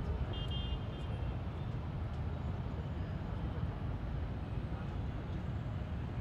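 Steady low outdoor rumble of background noise, with a brief high chirp about half a second in.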